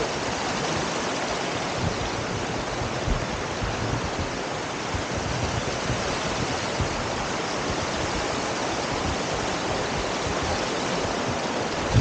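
Shallow, rocky jungle stream rushing steadily over small cascades and boulders, close by.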